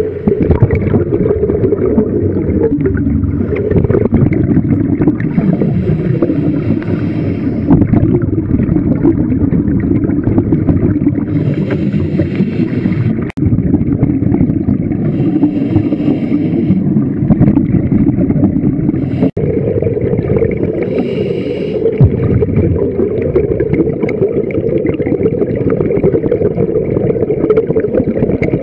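Scuba diver's breathing and regulator bubbles heard underwater through the camera housing: a steady rumbling wash of water noise, with a brighter hiss of exhaled bubbles about every four to six seconds.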